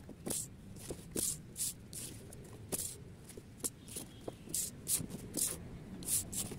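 Faint, irregular rustles and brushes of paper being handled, a few a second, with soft taps.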